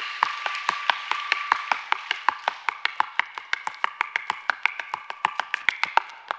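Irish hard-shoe dancing: a fast, rhythmic clatter of sharp heel and toe strikes on the stage, the beats coming quicker in the second half. A faint held tone sits under the strikes.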